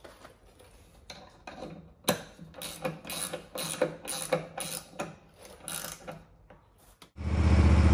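A ratchet wrench clicking in quick strokes, about three a second, as it tightens the top nut on a rebuilt mower-deck spindle. Just before the end, a Bad Boy Maverick zero-turn mower's engine cuts in abruptly and runs steadily, louder than the clicks.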